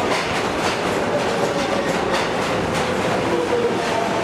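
New York City subway train pulling into a station and running along the platform. A steady rumble and faint whine are broken by wheels clicking over rail joints at a regular beat.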